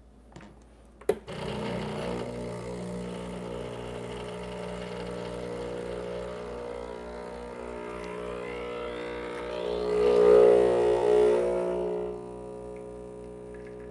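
Espresso machine's vibratory pump starting with a click and buzzing steadily as it pushes water through the puck in a bottomless portafilter. It grows louder, with a hiss, around ten seconds in, then drops to a lower steady hum about two seconds later as the first espresso begins to drip.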